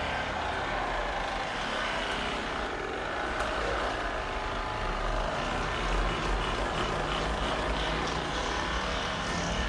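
A steady motor hum with a low drone underneath, unchanging throughout.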